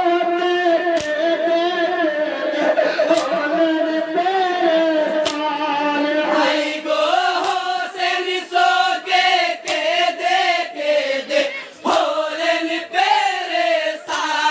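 A man singing a jari gaan marsiya, the Bengali Muharram lament for Hasan and Husain, into a microphone in long, wavering chanted notes. Sharp strikes come every second or two under the singing.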